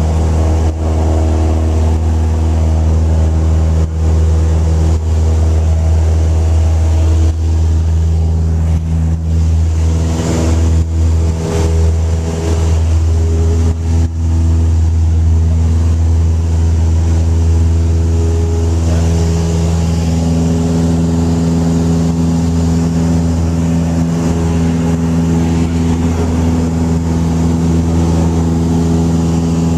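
Single-engine light aircraft's piston engine and propeller at full takeoff power, heard from inside the cabin: a loud, steady drone through the takeoff roll and climb-out. A few brief knocks come about 10 to 14 seconds in, and the engine's tone shifts slightly about 19 seconds in.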